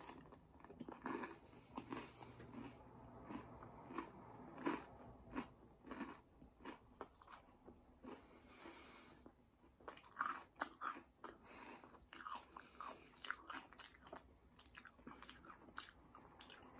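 A person chewing a mouthful of crunchy Franken Berry cereal in milk, with faint, irregular crunches that come one after another.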